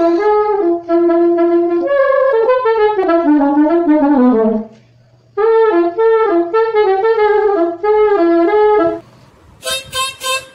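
Solo saxophone playing a melody, with a falling run of notes partway through and a short pause before the tune resumes. Near the end a different reedy instrument cuts in with short, quickly repeated chords.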